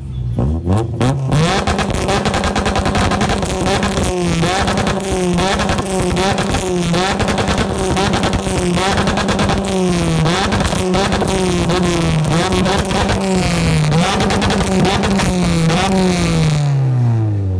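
Exhaust of a K20-swapped Honda Civic EG hatchback, its Honda K20 four-cylinder revved up and held high. The pitch dips and recovers about once a second, then falls away near the end as the revs drop.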